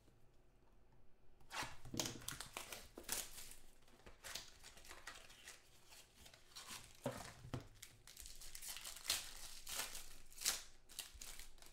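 Foil trading-card pack wrappers being torn open and crinkled by hand: a quick run of irregular rustling tears and crumples, starting about a second and a half in.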